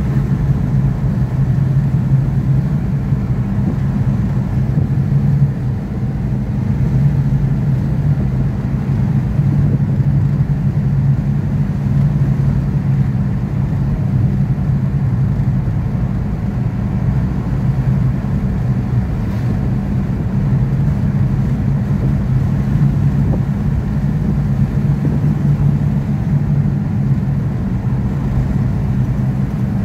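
Volkswagen Kombi van's engine running steadily at road speed, heard from inside the cab as a steady low hum with tyre and road noise.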